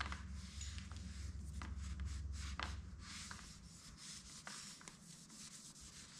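Scattered light clicks, taps and rubbing from hands handling small metal bicycle-shock mounting hardware, over a low hum that stops a little under halfway.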